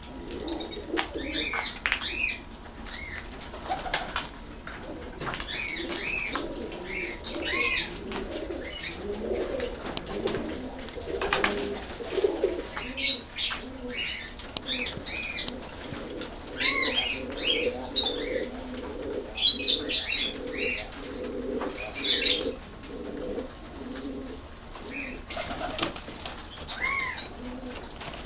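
A loft full of Iraqi pigeons cooing, their low cooing going on throughout, mixed with many short, high chirping calls.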